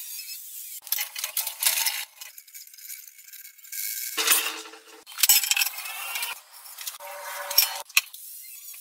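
Angle grinder cutting and grinding steel flat bar in several short bursts of about a second each, with metal clinks between.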